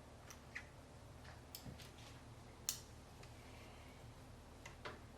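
Faint, irregular small clicks and ticks of a screwdriver driving a screw through a motherboard into a case standoff, one a little sharper about two and a half seconds in.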